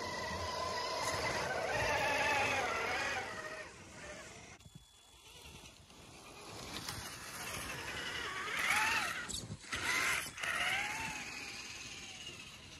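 Electric motors of RC crawler trucks whining as they drive through deep snow, the pitch rising and falling with the throttle. There are two spells of revving, with a quieter gap about five seconds in.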